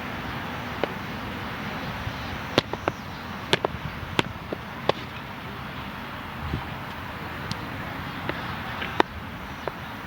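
Soccer ball being kicked during play: a series of short, sharp thuds, several in quick succession between about two and five seconds in, over steady outdoor background noise.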